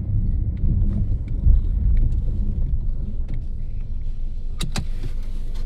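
Car heard from inside while driving: a steady low hum and rumble, with scattered light ticks and creaks and two sharper clicks near the end. This is the hum and the chirping, cricket-like noise that the title names.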